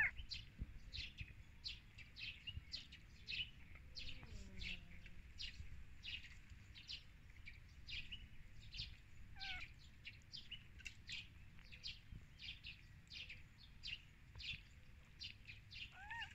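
Small birds chirping over and over in the background, several short high chirps a second. A newborn kitten gives a thin mew right at the start, another about halfway through and one near the end.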